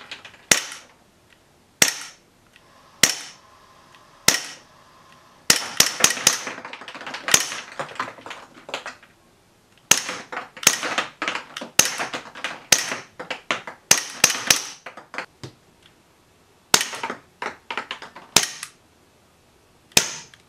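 Well G197 gas blowback airsoft pistol firing, each shot a sharp crack from the gas blast and the slide cycling. A few single shots about a second apart are followed by fast strings of shots, then a few more spaced shots near the end.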